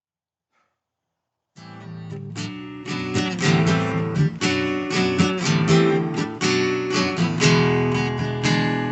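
Acoustic guitar intro, chords strummed and picked, starting about a second and a half in after silence; the last chord is left ringing and fading near the end.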